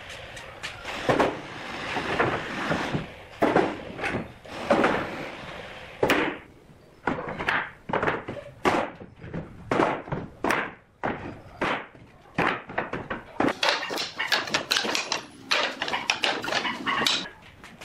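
Hardwood offcuts knocking and clattering against one another as they are picked through and dropped into a wooden crate: an irregular string of sharp wooden clacks, busiest near the end.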